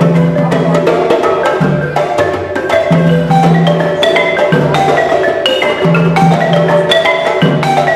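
Background music: quick mallet-percussion notes, like a marimba, over a repeating low bass line.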